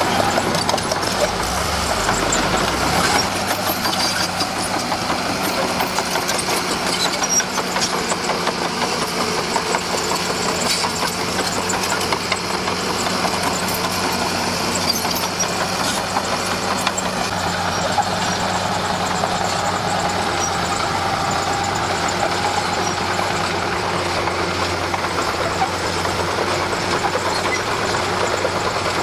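Diesel engine of a Komatsu D41P crawler bulldozer running steadily while it works, with a continuous fine rattle of small clicks over the engine.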